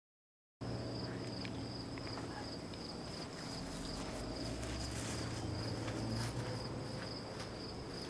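Crickets chirping in a steady, high, continuous trill, over a low steady background hum.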